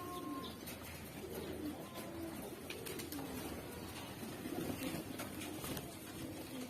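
Domestic pigeons cooing, several low coos overlapping one after another, with a few faint clicks.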